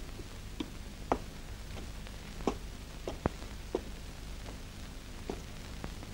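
A series of soft, short taps and clicks, irregular but about one every half second, over a low steady hum.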